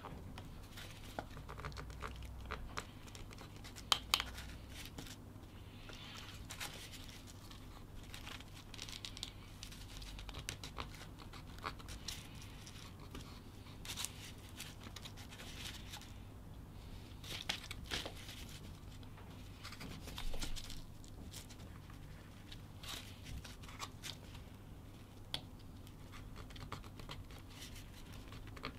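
Carving knife scoring and slicing across a small wooden block: faint, irregular scratches and small clicks of the blade cutting the wood, over a low steady hum.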